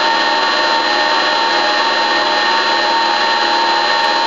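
Ikeda RM-1875 radial arm drill press's 3 HP arm-elevating motor and drive running steadily as the arm rises up the column: an even mechanical whine with several steady tones.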